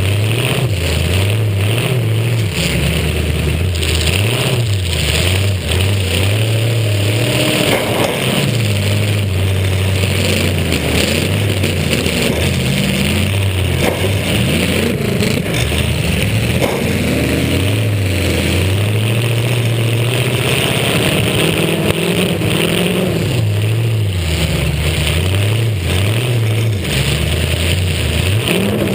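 Demolition derby car's engine revving up and easing off again and again, heard from a camera on the car's roof, with a few short sharp knocks.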